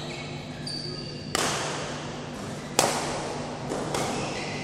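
Badminton rackets striking the shuttlecock twice, about a second and a half apart. Each hit is a sharp crack that echoes through a large hall, and short high-pitched squeaks of court shoes on the floor come in between.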